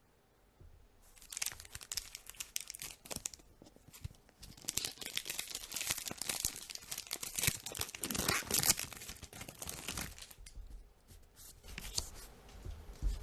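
The foil wrapper of a Magic: The Gathering draft booster pack being torn open and crinkled, a dense crackling that starts about a second in and goes on for several seconds. Near the end it gives way to softer clicks of the trading cards being handled.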